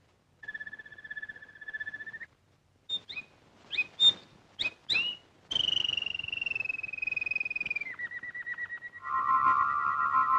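Bird-like whistled chirps and trills as a comic sound effect, canary-style tweeting after birdseed is eaten. A fluttering trill, then quick rising and falling chirps, a long slowly falling whistle, and a steady trilled tone with lower tones joining it near the end.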